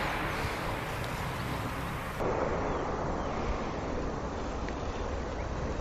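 Steady outdoor background noise: a hiss of wind on the microphone over a low rumble. It shifts in tone about two seconds in.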